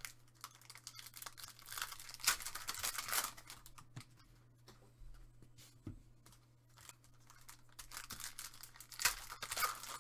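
Foil trading-card pack wrappers being torn open and crinkled in the hands, with cards shuffled. The rustling comes in two busier stretches, about two seconds in and again near the end, with quieter handling between, over a faint steady low hum.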